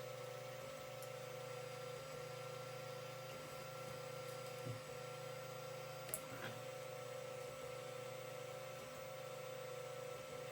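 Creality CR-10 3D printer running a print: a steady whine from its stepper motors over a low hum, the whine briefly dipping every second or two as the moves change, with a couple of faint clicks.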